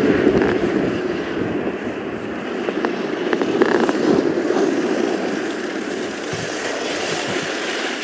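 Steady rushing noise of a downhill racer's skis running over hard, icy snow at high speed, with a few faint clicks.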